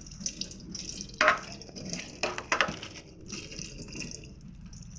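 Water trickling and splashing, as from a tap or a pour. It comes in uneven spurts, with louder splashes about a second in and again around two and a half seconds in.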